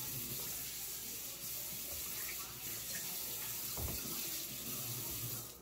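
Kitchen tap running into a sink with a steady rush of water, with one dull bump about four seconds in; the water stops abruptly near the end.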